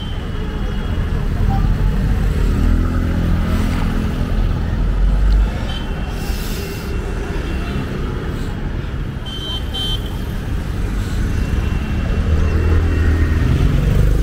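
Busy street traffic: engines of motorbikes and cars passing close, louder a second or two in and again near the end, with a few short high horn toots.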